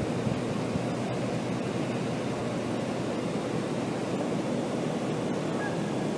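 Steady rushing drone of refrigerated container units running, even and unbroken, with no impulsive bang in this stretch.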